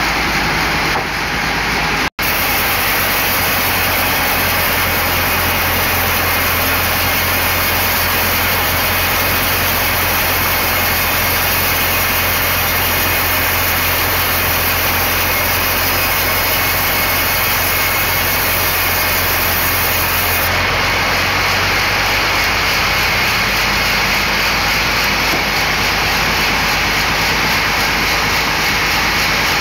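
Large vertical band-saw mill running, its blade cutting lengthwise through a thick timber slab on the carriage, with a loud, steady noise. The sound cuts out for an instant about two seconds in and shifts in tone around twenty seconds in.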